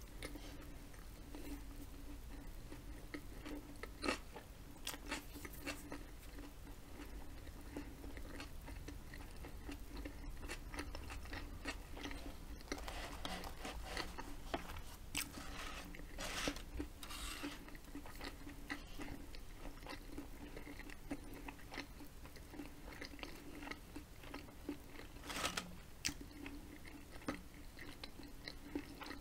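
Close-up chewing of a salami-and-ham sub sandwich: wet mouth clicks and smacks with some crunching, densest about halfway through, over a steady low hum.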